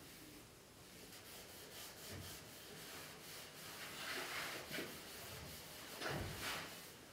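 Cloth rag wiping wood stain over white oak cabinet panels: faint rubbing swishes, strongest about four and six seconds in.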